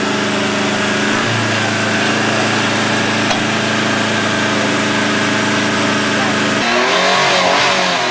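GAZ-69 off-road 4x4's four-cylinder petrol engine held at high, steady revs under load for about six and a half seconds, then the revs drop. Voices are heard shouting near the end.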